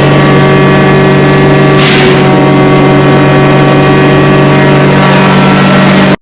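Gas engine of tree-work power equipment running loud and steady at high speed, with a brief burst of noise about two seconds in. It cuts off abruptly at the end.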